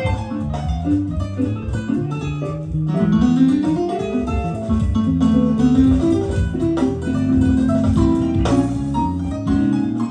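Guitar-led music with bass, played back from cassette tape on an Akai GX-Z9100EV tape deck; a note slides upward about three seconds in.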